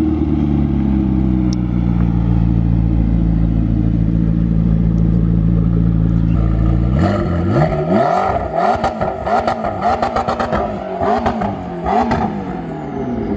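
2012 McLaren MP4-12C's 3.8-litre twin-turbo V8 with a straight-through exhaust, running at low, steady revs for about seven seconds. Then it is revved in about seven quick blips, with crackling from the exhaust.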